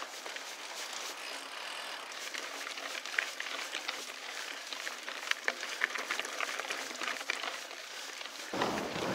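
Mountain bike riding over a dirt and gravel trail: a steady rush of tyre and air noise with many scattered ticks and clatters from gravel and the bike. Near the end a louder, deeper rush comes in.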